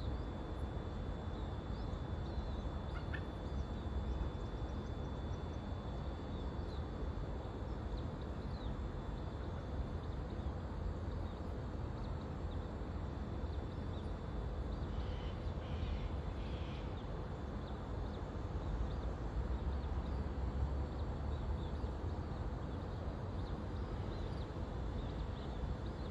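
Steady outdoor background noise with a low rumble, dotted with faint, short high-pitched bird chirps and a brief cluster of them about fifteen seconds in.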